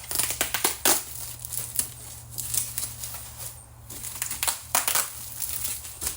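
Packaging being handled and pulled apart: irregular crinkling and rustling with sharp crackles, loudest in flurries near the start and again about five seconds in.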